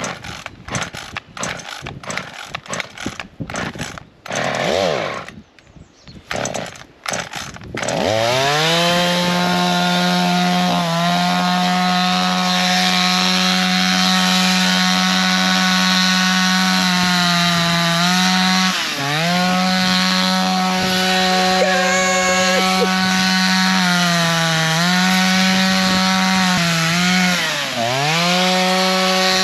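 Two-stroke petrol chainsaw, running on leftover old fuel. It sputters unevenly for the first several seconds, then about eight seconds in it is opened up to full throttle and runs flat out. Its pitch sags briefly several times as the chain bites into thick broom stems.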